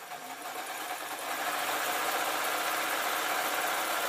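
Sewing machine running a seam, picking up speed over about the first second and then stitching at a steady, fast rate.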